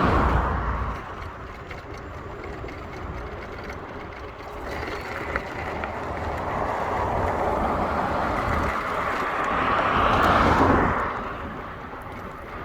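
Traffic noise with a road vehicle passing by: a rushing sound without a clear pitch that swells over several seconds and then falls away quickly near the end.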